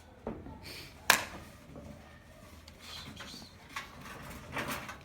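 Soft scuffs and taps in a small room, with one sharp knock about a second in.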